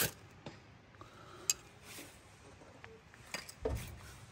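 Knife striking a ferrocerium fire-starter rod: a sharp metallic scrape right at the start and another about a second and a half in, with a few lighter clinks near the end. The sparks land on coal powder on paper and light it.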